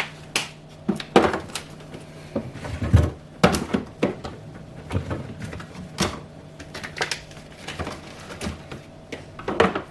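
Food packages and containers being handled and set down on fridge shelves: scattered knocks, taps and clicks at an irregular pace, over a faint steady low hum.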